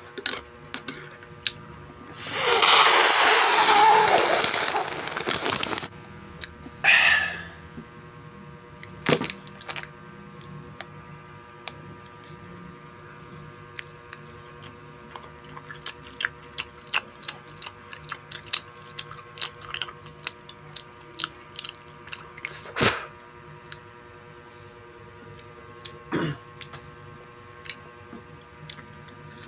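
Close-up chewing of crunchy food: many small crunches and mouth clicks, over a faint steady hum. A loud rushing noise lasts a few seconds near the start.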